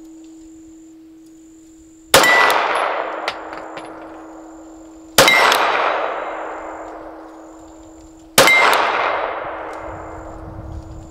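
Three 9mm pistol shots from a Glock 23 fitted with a 9mm conversion barrel, about three seconds apart. Each is a sharp crack as the subsonic bullet strikes a steel silhouette target, followed by a ring that fades over a couple of seconds.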